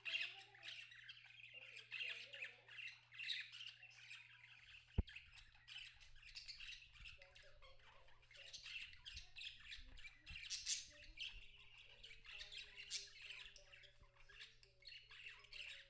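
A cockatiel playing with a small brass bell held in its beak: quiet, busy jingling and tapping of the bell, mixed with the bird's own chirps. One sharp knock about five seconds in.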